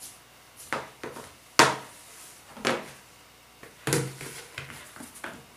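Five or six sharp knocks and clatters on a tabletop, the loudest about a second and a half in: a kitchen knife and a plastic bowl being handled and set down while yeast dough is cut.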